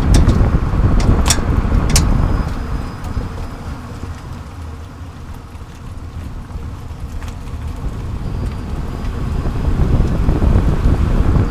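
Tyre and road rumble with wind buffeting, picked up by a camera mounted under the rear of a 30-series Prius while it drives. Three sharp clicks come in the first two seconds; the rumble eases off in the middle and builds again towards the end.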